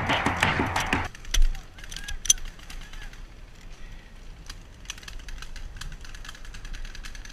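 Background music for about the first second, then it cuts off, leaving quieter outdoor sound: a dull thump just after, then scattered sharp clicks and pops of paintball markers firing across the field.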